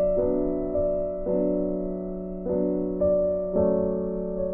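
Background music: slow piano chords, each struck and left to fade, a new one about every second.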